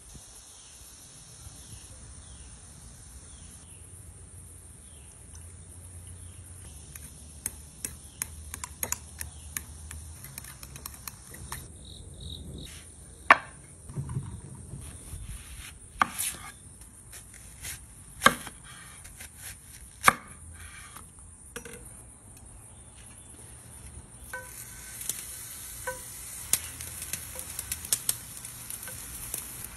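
Knife strokes knocking on a wooden cutting board, a few sharp loud knocks about two seconds apart among quieter clicks and handling sounds.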